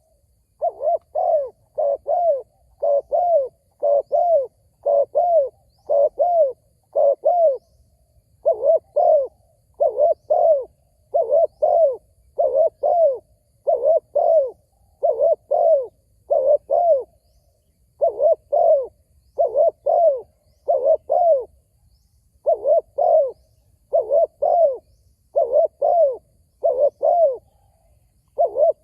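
Spotted dove cooing: a long run of short, low coos, roughly two a second, in phrases broken by brief pauses.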